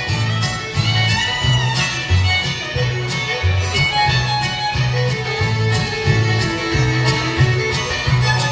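Bluegrass band playing an instrumental break, with the fiddle carrying the melody over guitar and a steady bass line.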